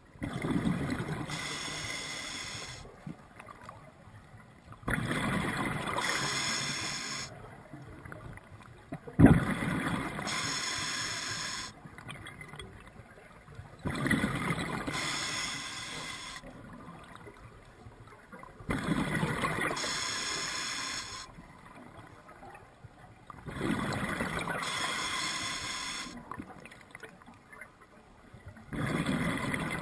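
Scuba diver breathing through a regulator, about one breath every five seconds: each breath is a hiss through the regulator and a gurgling rush of exhaust bubbles lasting two to three seconds, with quiet gaps between. There is a single sharp click about nine seconds in.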